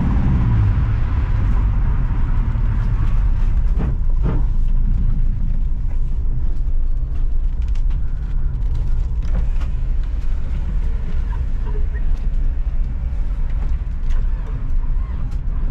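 Subaru Forester XT's turbocharged EJ25 flat-four engine slowing from high revs, then running low with irregular sharp knocks and rattles. These are the sound of a failing rod bearing, alongside a blown TD04 turbo, which the driver first took for a hard misfire.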